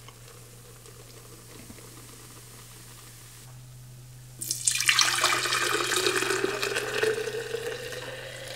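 Strained kamut-grass juice poured from a bowl into a glass jug. The steady splashing pour starts about four seconds in, its pitch rising slightly as the jug fills, and it tapers off near the end.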